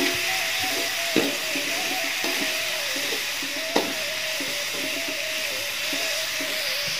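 Ground chilli and spice paste sizzling in a little oil in an aluminium wok as it is stir-fried until fragrant. A metal spoon scrapes through it and knocks sharply against the pan a few times.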